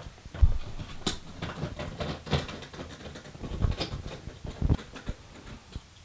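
Screws being fitted to hold a graphics card in a desktop PC case: irregular clicks, taps and low thumps of small metal parts being handled, with a loud thump about half a second in and a sharp click about a second in.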